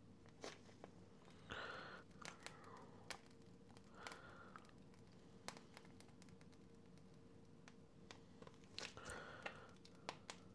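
Near silence with faint crinkling of a plastic piping bag being squeezed as cream is piped: three short soft rustles and a few small clicks over a faint steady hum.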